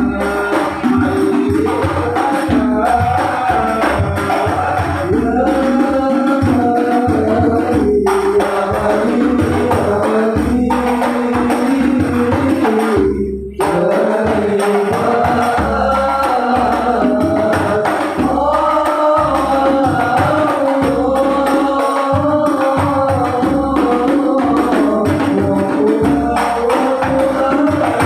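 Sholawat devotional singing over hand-played frame drums (rebana) keeping a steady beat, with a short break in the sound about halfway through.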